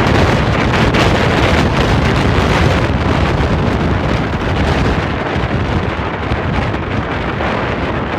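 Strong wind buffeting a phone's microphone, a loud steady rumbling roar with no breaks.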